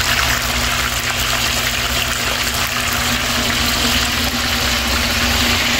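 Pork pieces frying with garlic and hot peppers in a pot of hot oil: a steady sizzle.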